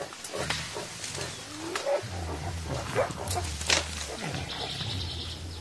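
Mountain gorillas calling to one another with low, drawn-out rumbles, three in a row, mixed with short calls that slide in pitch and a few sharp clicks.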